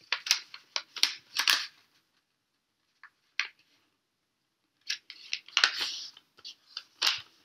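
Sheet of origami paper crackling and rustling as it is folded and the crease pressed flat against the table: a quick run of crisp crinkles, a couple of faint ticks, then a second cluster of crinkles with a longer rustle about five to seven seconds in.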